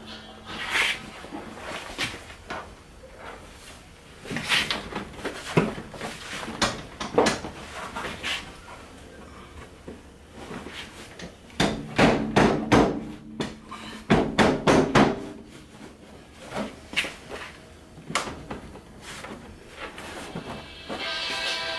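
Knocks, clicks and clatter of a plastic fender flare being handled and fitted back onto a Jeep Wrangler's body, with two runs of rapid clattering in the middle. Music comes in near the end.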